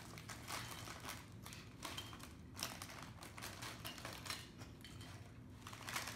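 Plastic potato-chip bags crinkling as chips are shaken out onto plates, with irregular crackles and light clatters of chips landing.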